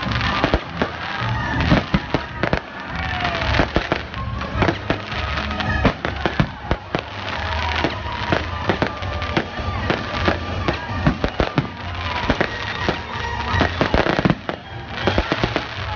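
Aerial fireworks going off in quick succession: many sharp bangs, several a second, throughout. A musical-theatre soundtrack plays beneath them.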